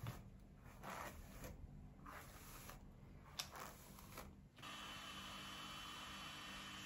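Soft rustles of hands running through long hair, a handful of short strokes with one light click a little after three seconds. About four and a half seconds in these stop and a steady faint hiss with a low hum takes over.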